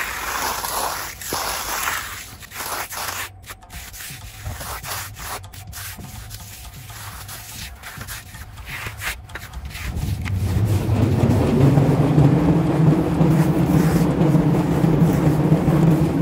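A steel finishing trowel scraping and rubbing over a wet concrete slab as the surface is smoothed. About ten seconds in, a loud steady low hum sets in over it.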